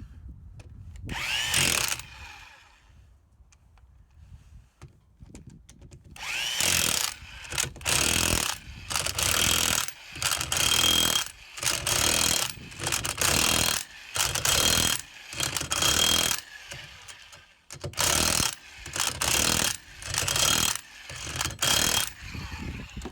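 Mastercraft 7.5A corded electric impact wrench run in short bursts: one early burst, a pause, then a long run of bursts of about a second each, roughly one a second, some carrying a thin high motor whine.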